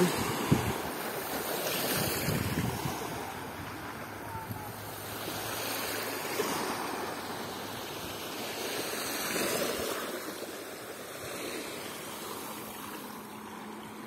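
Small waves lapping and washing onto a sandy shore of a calm, shallow sea, the wash swelling and fading every few seconds.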